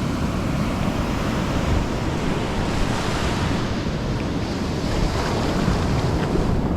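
Surf washing onto a sandy beach, a steady rush of waves, with wind buffeting the microphone.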